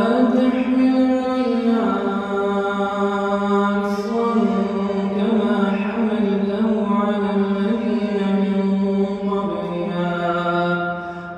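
A man's voice reciting the Quran in melodic tajweed style, holding long, drawn-out notes with slow turns of pitch. One long phrase ends shortly before the close, and the next begins after a brief breath.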